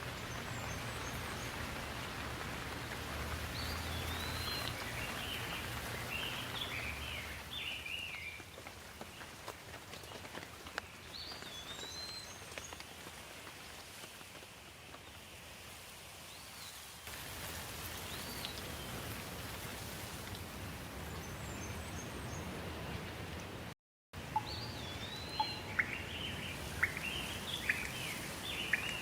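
Steady rain hiss with songbirds calling in short gliding phrases every few seconds. The sound drops out completely for a moment about three-quarters of the way through.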